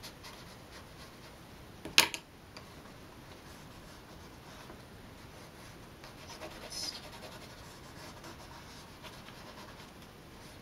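Faint scratching and rubbing of a brush and wax pastel working on thick paper, with one sharp knock about two seconds in and a short scratchy rustle a little past the middle.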